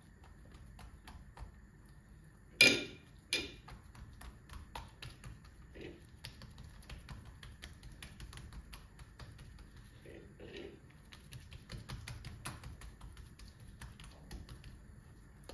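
Irregular light clicking and tapping, with two much louder sharp knocks in quick succession about two and a half seconds in.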